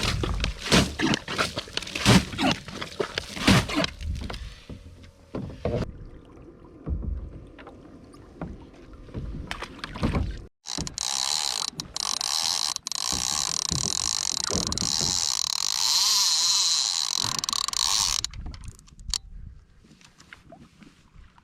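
Knocks and clatter of gear being handled on a fishing kayak, then, about eleven seconds in, a fishing reel's drag starts buzzing steadily as a fish takes line. The buzz runs for about seven seconds and stops abruptly.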